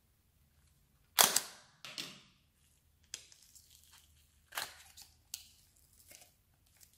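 Small plastic slime container's lid popped open with a loud snap about a second in, then a few softer snaps and clicks as the pink slime is pulled out of the tub.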